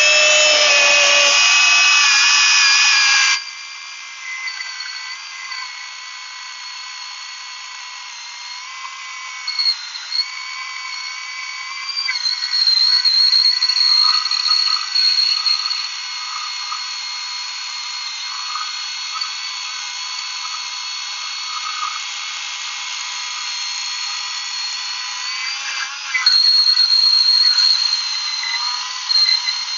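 Milwaukee battery-powered chainsaw running with a steady high electric whine, cutting through wood. It kicks in suddenly at full loudness and grows louder again in two stretches, about twelve seconds in and near the end.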